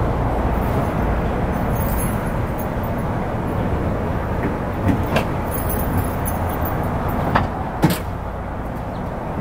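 A car engine idling steadily, heard at its turned-down exhaust tip, with a few short clicks in the second half.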